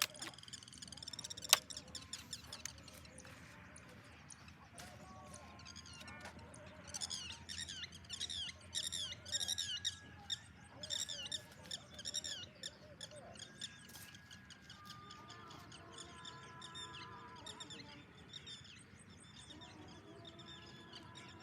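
Small birds chirping in rapid, repeated arching high calls, thickest through the middle, with fainter whistled notes later on. A single sharp crack about a second and a half in is the loudest sound.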